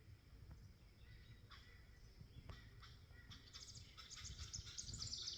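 Barred owl giving a faint, raspy wheezing hiss made of rapid pulses. It starts a bit past halfway and grows louder toward the end, sinking slightly in pitch.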